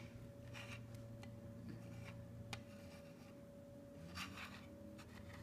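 Faint handling of Lego pieces on a plastic baseplate: a few light clicks and rubs, one click about two and a half seconds in a little sharper. Under it runs a faint steady hum.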